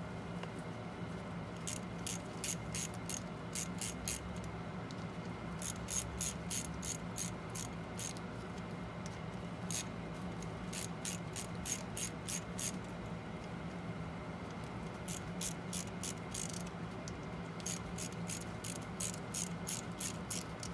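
Ratchet wrench clicking in quick bursts, about five runs of rapid clicks with short pauses between, as the bolts of the oil filter cover are run in.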